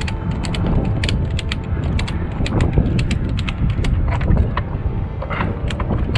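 Hand-worked ratchet mechanism clicking irregularly, several clicks a second, over a steady low rumble.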